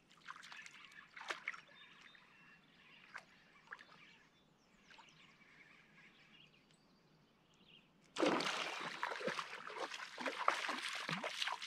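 Loud splashing and sloshing in shallow lake water starting suddenly about eight seconds in, after faint scattered chirps.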